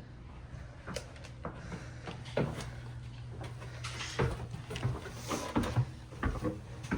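Irregular knocks and clatter, like things being handled or doors and drawers moving, coming more often after about four seconds, over a steady low hum.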